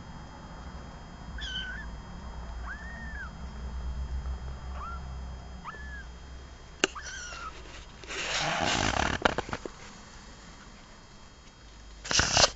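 Small animals giving about five short, high squeaks that rise and fall in pitch, followed by a sharp click and bursts of scuffling and rustling.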